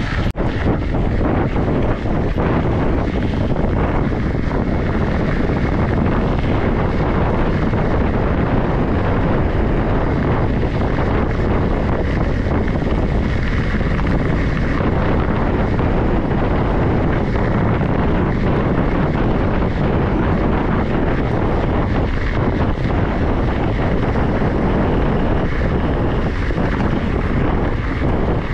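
Wind buffeting a helmet- or bike-mounted action camera's microphone while a mountain bike rides along a gravel road, with a steady rumble of tyres on gravel and a constant fine rattle of stones and bike parts.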